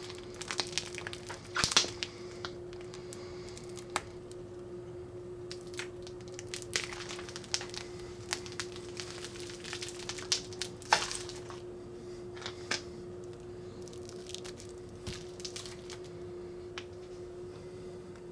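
Hands squeezing, stretching and pulling homemade milkshake slime: a run of irregular wet squishes, crackles and small tearing pops, louder in a couple of spots.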